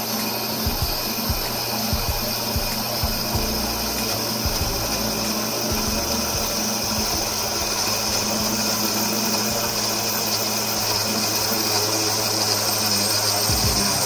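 Mini drill press motor running steadily while a thin bit drills a hole into a metal bar, cutting chips as it goes.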